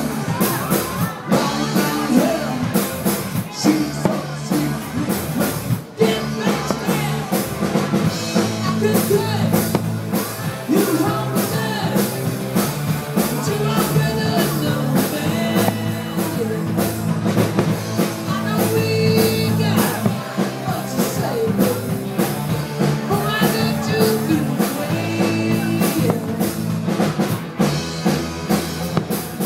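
Rock music with singing and a steady drum beat.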